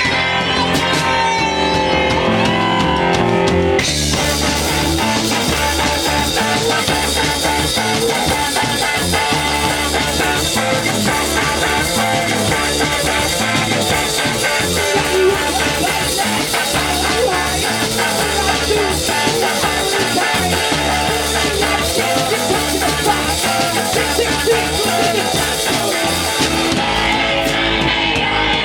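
Live punk rock band playing loud, with electric guitar at first and then the drums and bass coming in about four seconds in, the full band driving a steady beat until it thins out near the end.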